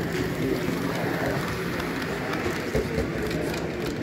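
Steady background noise of a busy indoor hall, with a low murmur of distant voices and no single sound standing out.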